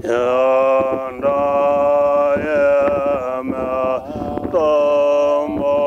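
A man chanting a Tibetan Buddhist prayer in long, held notes, with short breaks between phrases.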